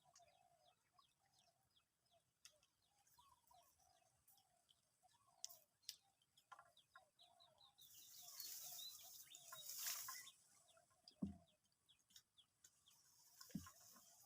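Faint bird calls: short chirps repeating, with quick high ticks. A brief rush of noise comes about eight seconds in, and a low thump a little after.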